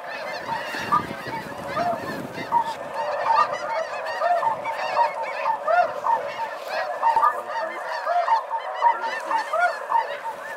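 Large flock of snow geese calling overhead: a dense, unbroken chorus of many overlapping short, high honks.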